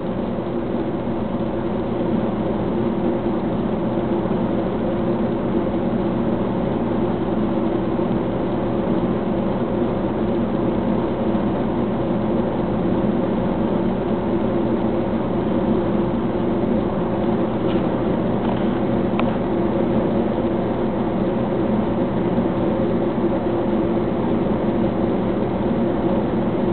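A steady mechanical drone, like a motor or engine running, holds several even tones without change. A couple of faint clicks come about two-thirds of the way through.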